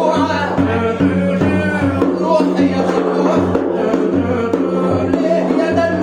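Egyptian popular music playing loud: a wavering, ornamented melodic line over a steady bass beat.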